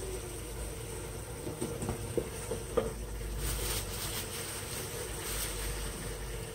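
Masala gravy sizzling and bubbling in a steel pot over a steady low rumble, with a few light clicks of a ladle against the pot about two and three seconds in.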